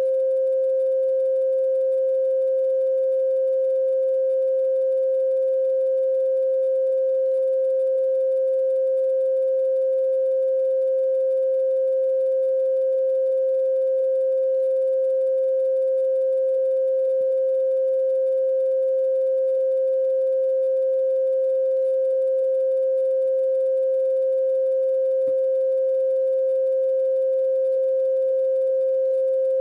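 A steady, pure electronic tone held at one mid pitch without any change, used as background sound.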